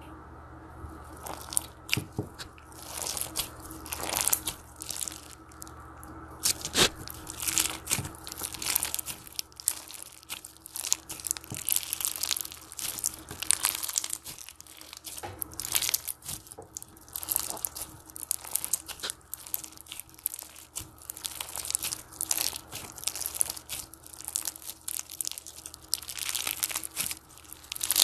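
Red slime packed with clear beads being squeezed and kneaded by hand, making dense crunching and crackling with many sharp little pops.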